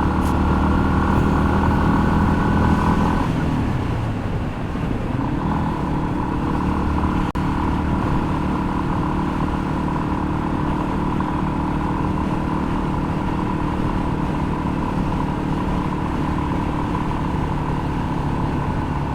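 2021 Yamaha XT250's single-cylinder engine running under way. About three seconds in, the engine note drops and falls in pitch, then picks back up and holds a steady pitch.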